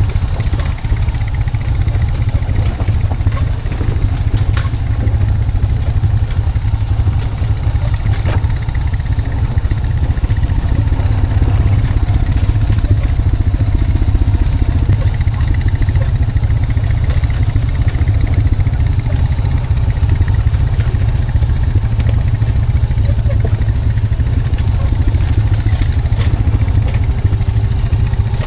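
Honda Foreman 520 ATV's single-cylinder engine running steadily under load while towing a log on a skidding arch. A few brief knocks sound through it.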